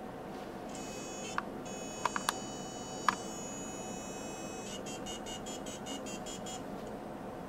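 PalmModem's small speaker playing the phone line's steady dial tone, then a quick run of about a dozen short touch-tone beeps as it dials the number. A few sharp clicks sound near the start.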